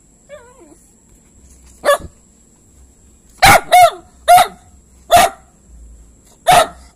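A dog barking six times in short, sharp barks, with two coming in quick succession near the middle.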